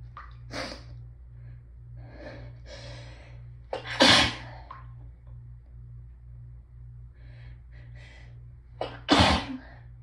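Hay fever sneezing: two loud sneezes about five seconds apart, each coming after a run of hitching, gasping in-breaths.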